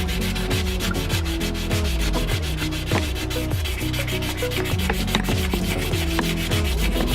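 Sandpaper rubbed by hand against a brass padlock body in quick, continuous scratchy strokes, scouring off rust and tarnish.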